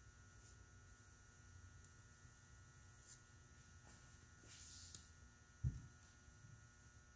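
Near silence: a faint steady hum, with a few soft brushing strokes and one short low thump about three-quarters of the way through.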